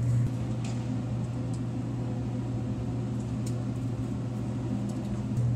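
Steady low hum of an indoor shooting range's ventilation, with a few faint ticks.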